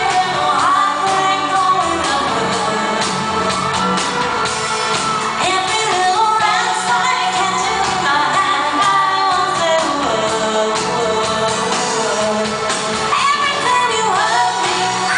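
Live electropop song, played loud through a venue PA: a woman sings the lead with held, gliding notes over a band with keyboards and guitar.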